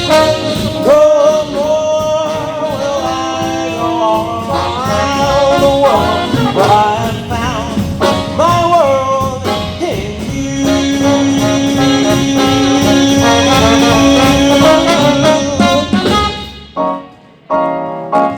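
A live swing and jump-blues band with a horn section of trumpet, trombone and saxophone playing an instrumental passage with sliding horn lines. Over a long held low note the band builds, then cuts off sharply about 16 seconds in, followed by two short band hits near the end.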